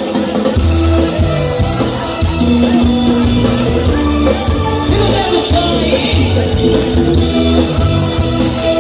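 Loud carnival music with a steady beat and singing.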